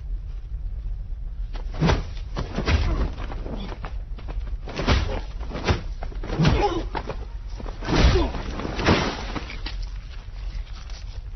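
Movie fight sound effects: about seven heavy punch and body-blow impacts, spread irregularly over several seconds, mixed with men grunting as they trade blows.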